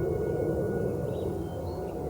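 Several distant tornado warning sirens sounding at once during a test, their tones blending into a steady drone, with a few bird chirps in the second half.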